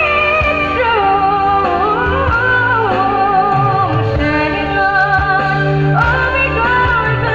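A woman singing into a handheld microphone, holding long wavering notes over instrumental backing music.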